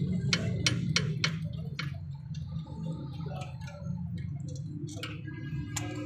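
Wrench clicking on a brake caliper bolt, a quick run of sharp metallic clicks in the first two seconds and scattered ones after, over a steady low hum.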